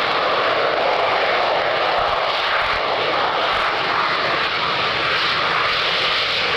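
F-15 Eagle's twin turbofan engines giving a loud, steady jet roar as the fighter rolls fast along the runway.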